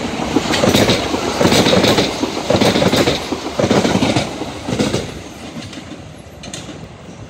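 Southern Class 377 electric multiple unit passing at speed, its wheels clattering over rail joints in groups of sharp knocks about a second apart. The sound fades after about five seconds as the train moves away.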